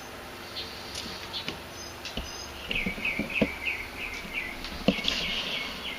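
A small bird chirping a quick run of short repeated notes, starting about three seconds in, over steady background noise. A few sharp knocks and clicks fall in between, the loudest near the end.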